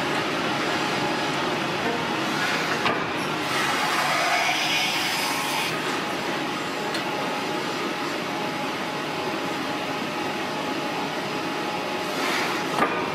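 Steady hiss and rumble of a hydraulic forging press squeezing a glowing steel billet, with a faint click about three seconds in and a sharp knock near the end.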